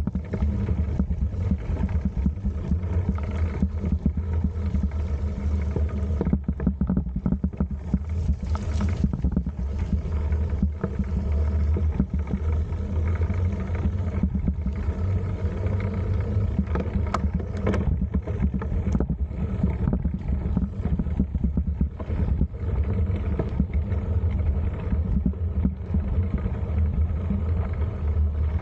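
Wind rumbling and buffeting the microphone of a camera mounted on a moving bicycle, a steady low rumble with rough flutter and crackle.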